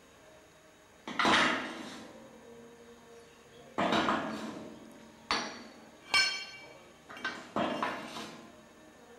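Heavy steel clanking: flat steel packing plates being knocked and set into place in a boiler-flue swaging jig, behind the plug in the flue end. There are about six clanks, some with a metallic ring dying away after them.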